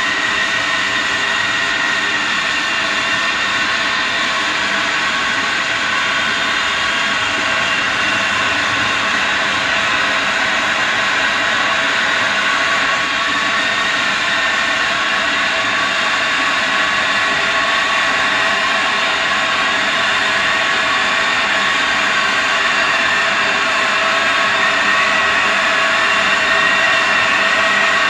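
Kettle boiling: a steady, dense rush of noise with a few faint held tones in it, growing a little louder near the end.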